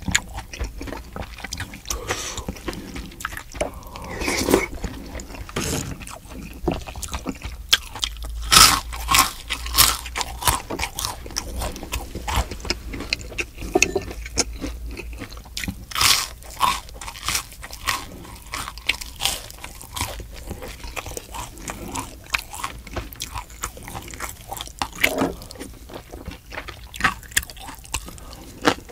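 Close-miked crunching and chewing of battered, deep-fried mudfish (loach), with crisp bites scattered throughout. The loudest crunches come about a third of the way in and again around the middle.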